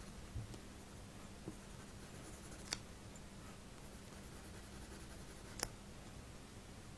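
Faint scratching of a coloured pencil shading on drawing paper, with two sharp clicks about three seconds apart over a low steady hum.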